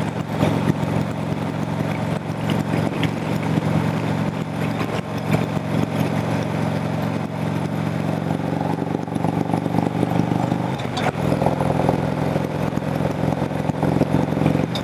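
Harley-Davidson V-twin motorcycle engine running steadily, heard from the rider's seat; its note changes about three-quarters of the way through.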